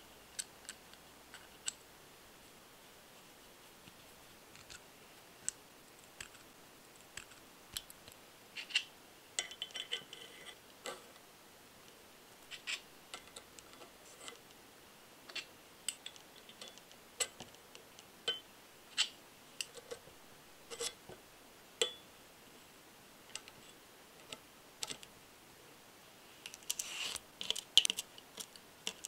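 Small full-metal engine-model parts clicking and clinking as they are handled and fitted together: scattered light taps about once a second, with a brief metallic ring about ten seconds in. Near the end comes a quick flurry of clicks as tweezers pick through a plastic parts box of small screws.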